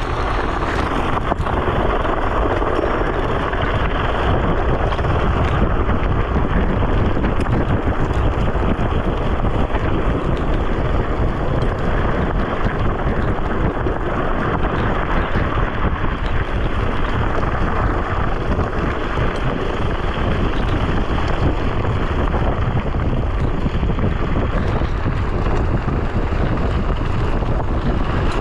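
Steady wind rushing over the microphone of a rider on the move, a constant loud rumble with a hiss on top.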